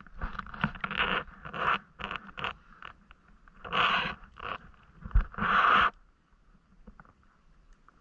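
Water splashing and sloshing at the surface in irregular bursts, the two longest about four and five and a half seconds in, then dying down to faint lapping near the end.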